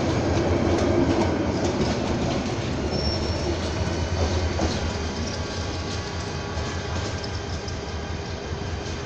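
Bangladesh Railway intercity passenger train's coaches rolling away along the track, wheels clicking over the rails. The sound slowly fades as the train recedes.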